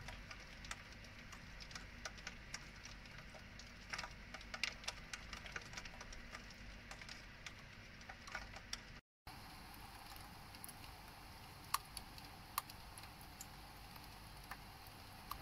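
Rain falling, heard as a faint steady hiss with irregular ticks and taps of raindrops hitting nearby surfaces, a few sharper ones in the second half.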